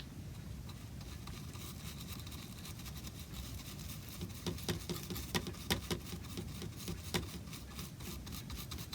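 A run of light, irregular clicks and taps over a low steady hum, starting a couple of seconds in and thickest in the middle, with a few sharper knocks.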